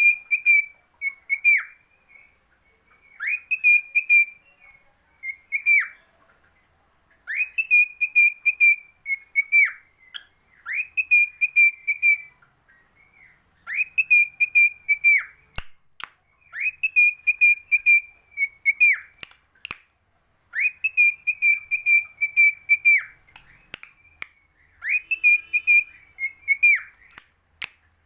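Gray cockatiel whistling the same short tune over and over: a phrase of about two seconds ending in a quick downward slide, repeated roughly every three seconds.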